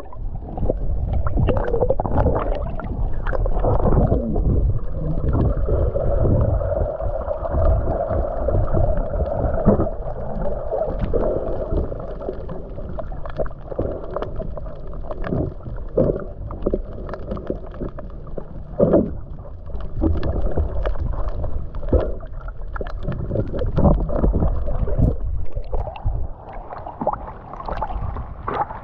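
Water rushing, gurgling and slapping against the hull of a Hobie Tandem Island sailing kayak under way, with irregular knocks and splashes. It sounds muffled.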